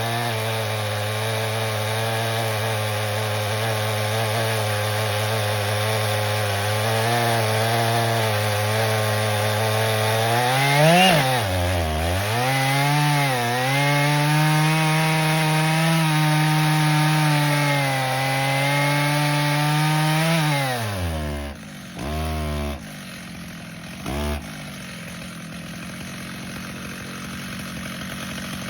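Stihl MS 881 two-stroke chainsaw cutting through a large maple log under load. Its pitch holds steady, dips sharply and recovers about halfway, then runs higher and steady. Near the end the throttle is released, with two short blips before the saw drops to a quiet idle.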